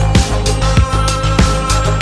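Electronic background music with a steady kick-drum beat, a little over one and a half beats a second, over heavy bass and hi-hats.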